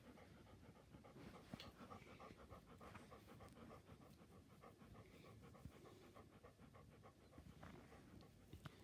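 A pet dog panting softly with its tongue out, in quick, even breaths.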